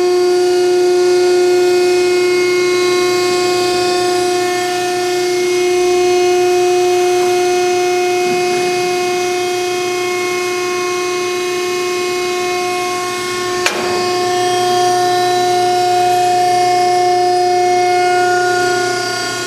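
PTR 3400HD vertical baler's 10-hp three-phase electric motor and hydraulic pump running under load with a steady whine as the platen is driven down on its compression stroke. A single sharp click about 14 seconds in.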